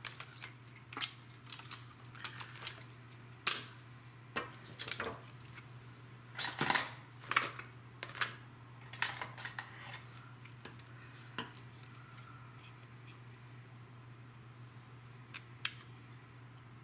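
Cardstock being cut on a paper trimmer and paper and tools being handled: a dense run of light clicks, taps and rustles in the first half, then only a few scattered clicks, with a couple of small scissor snips near the end. A steady low hum runs underneath.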